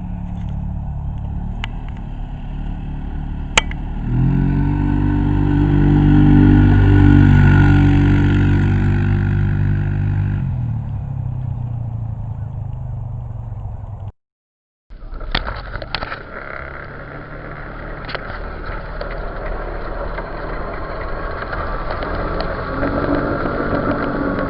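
Motor vehicle engine revving while driving through mud. It revs up about four seconds in, holds for several seconds and eases off near ten seconds. After a brief break it runs again under a rougher noise.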